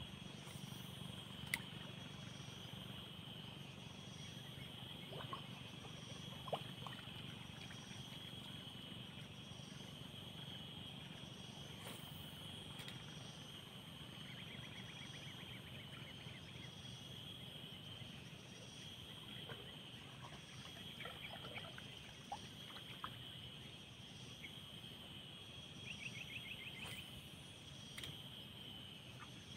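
Quiet outdoor ambience: a steady high-pitched animal chorus with a low hum underneath, broken by a few faint clicks and short trills.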